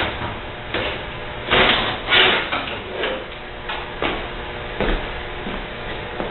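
Irregular knocks, clicks and short scrapes of dishwasher parts and tools being handled while the machine is taken apart.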